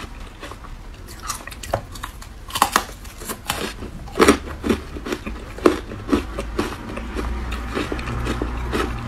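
Ice coated in matcha powder being bitten and chewed: a series of sharp cracking crunches, loudest about halfway through, giving way to softer chewing near the end.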